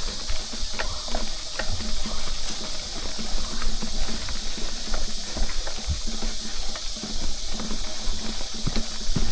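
Mountain bike being pedaled on a sandy trail, with a steady hiss from the tyres and the wind and small irregular clicks from the drivetrain under load. The rider calls it a clunk click, which he thinks might be the rear sprocket, with a newly fitted chain.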